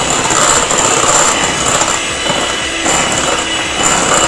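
Electric hand mixer running steadily with a constant whine, its twin beaters creaming butter and sugar in a glass bowl to a fluffy, creamy stage.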